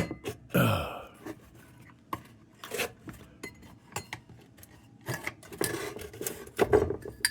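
Metal clinks, knocks and scraping as the parts of a rusty steel lantern are worked by hand, trying to free a stuck wire bail. Short sharp taps come throughout, with longer scraping stretches after about five seconds.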